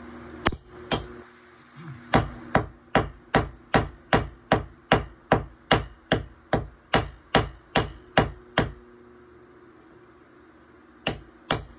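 Hammer driving a steel chisel into a concrete block wall: two blows, then a steady run of sharp blows at about two and a half a second. After a pause, two more blows come near the end.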